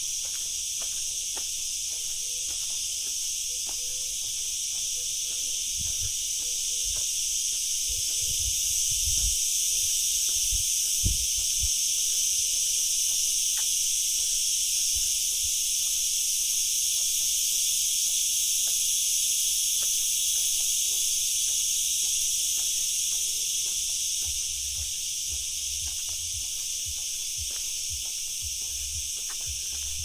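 A dense, steady chorus of insects chirping, with light footsteps along a path and a few low bumps near the middle.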